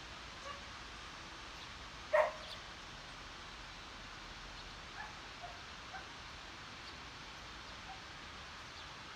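A dog barking: one loud bark about two seconds in, then a few fainter short barks, over a steady background hiss.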